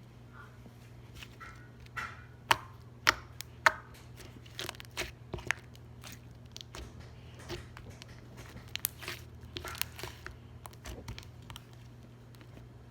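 Borax slime being squeezed and worked by hand, giving irregular small clicks and crackly pops, with three louder pops between about two and four seconds in and another run of clicks near nine to ten seconds.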